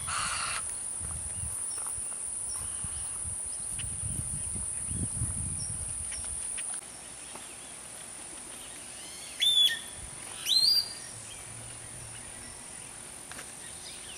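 A high, steady insect buzz that cuts off about halfway through, then two loud bird calls about a second apart, each sweeping in pitch.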